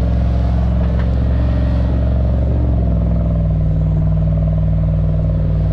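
A 4x4 recovery vehicle's engine running steadily under load as it tows a stuck pickup out of soft sand on a tow strap. The engine note shifts slightly about three seconds in.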